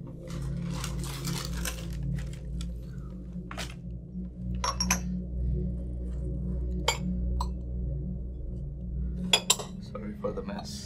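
Scattered clinks and clatters of tableware, the sharpest pair of knocks coming about nine and a half seconds in, over a low, sustained background music drone.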